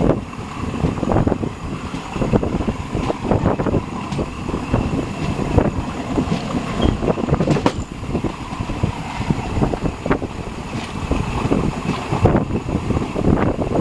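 Passenger train running on the track: a steady low rumble with frequent irregular knocks and rattles, and wind noise on the microphone.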